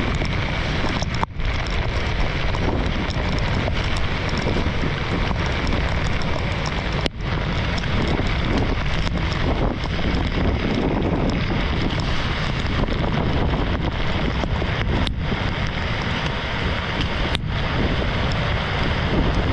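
Storm wind blasting across the microphone with heavy rain, a loud steady rush of noise with a few momentary breaks.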